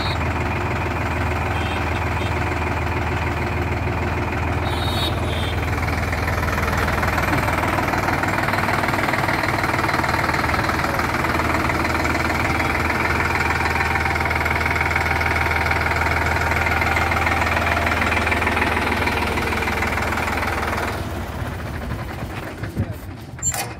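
Indo Farm 3048 DI tractor's diesel engine running steadily with an even, throbbing note. About 21 seconds in it falls noticeably quieter, and a few sharp clicks come near the end.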